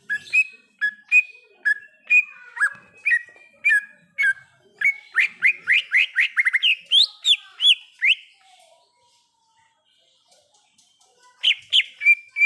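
Green leafbird (cucak ijo) singing: short clear whistled notes about twice a second, then a quick run of rising whistles. The song breaks off about eight seconds in and starts again near the end.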